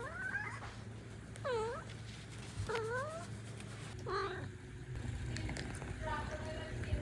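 A cat meowing repeatedly: about five short meows a second or so apart, each bending in pitch, the last one longer and steadier.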